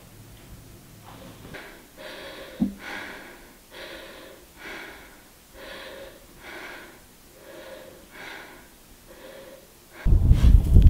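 A woman breathing heavily and raggedly, about eleven quick audible breaths in a row, with a brief voiced catch in the throat about two and a half seconds in. Near the end a loud low rumbling noise cuts in suddenly.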